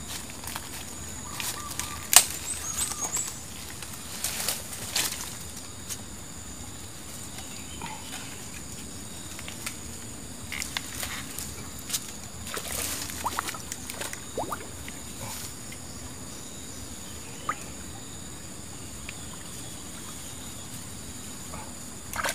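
Intermittent splashing and sloshing of shallow river water, with rustling and small knocks, as someone wades at the bank and works a bamboo fishing pole into the mud. The sounds come in short scattered bursts.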